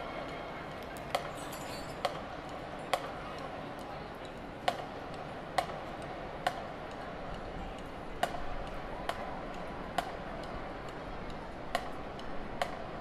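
Sharp clicks in a steady march beat, a little under one a second, in groups of three with every fourth beat silent, over a low crowd murmur: a marching band's drum sticks clicking time.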